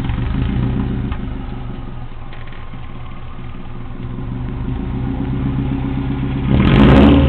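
Subaru Legacy 2.0 GT's boxer four-cylinder running on a muffler-deleted, straight-through exhaust: a steady idle that eases slightly at first, then a short, louder rev about six and a half seconds in.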